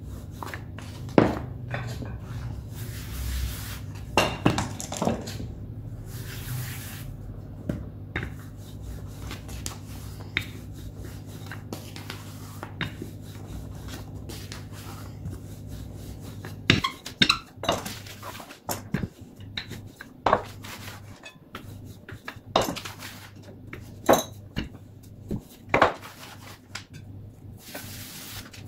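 Wooden rolling pin rolling dough on a wooden pastry board, with soft rolling passes and scattered sharp knocks and taps of wood on wood, more of them in the second half. A steady low hum underneath stops about halfway through.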